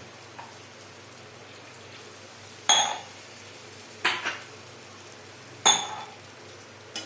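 Metal spoon striking the side of a metal kadhai three times, about a second and a half apart, each strike ringing briefly.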